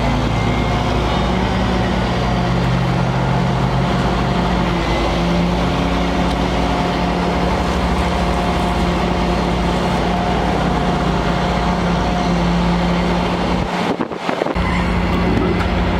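Heavy wrecker's diesel engine running steadily at one speed, powering the boom as it lifts an overturned trailer. The low engine sound breaks off briefly near the end.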